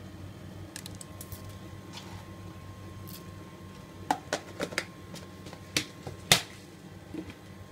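Black peppercorns dropped by hand into a stock pot: a few light ticks about a second in, then a scatter of sharp clicks about four to six seconds in as the hard peppercorns land, the loudest near the end.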